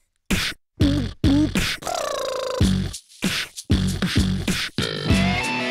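Beatboxed vocal percussion: rhythmic mouth-made kicks and snares with short gaps and a wavering sung note about two seconds in, then pitched band music starting near the end.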